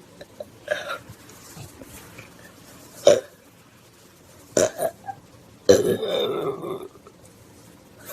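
A person with an upset stomach burping repeatedly: a short, sharp burp, then two quick ones in a row, then a longer burp of about a second, the loudest.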